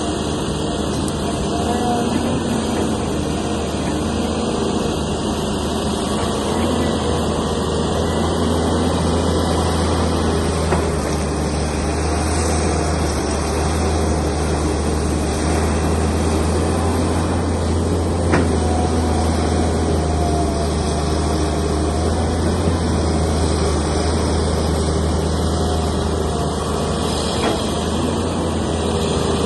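Heavy diesel engine of earth-moving machinery running steadily, with a single sharp knock about eighteen seconds in.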